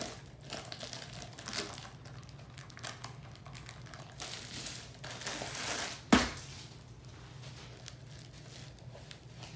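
Rustling and crinkling as a rolled diamond painting canvas is handled and the tape on its end picked at, with a longer stretch of rustling about five seconds in. A single sharp knock just after six seconds is the loudest sound, over a steady low hum.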